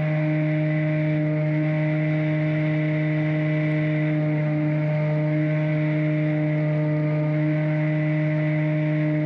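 Radio-controlled bait boat's electric motor running at a steady speed, a constant hum at one fixed pitch.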